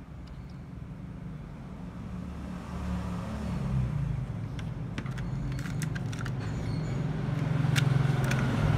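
A low engine-like rumble, like passing traffic, builds up over several seconds and is loudest near the end. Over it come a few sharp clicks as a memory module is handled and pulled from a motherboard's slot.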